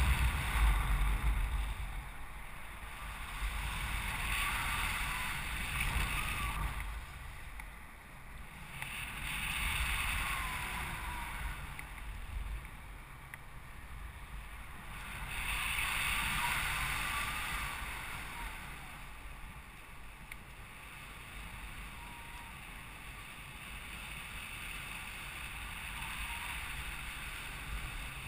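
Wind rushing over a paraglider's camera microphone in flight. It swells and fades in waves every five or six seconds as the glider swings through steep turns, the loudest gust coming right at the start, then settles to a steadier, quieter rush.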